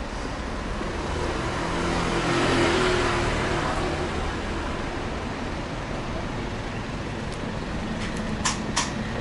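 Street traffic rushing steadily, with one vehicle passing close by and swelling to a peak about two to three seconds in before fading. Two short sharp clicks near the end.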